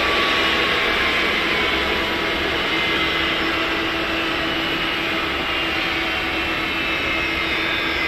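Boeing 777-200ER's twin jet engines running in a steady roar, with whining tones that slowly fall in pitch.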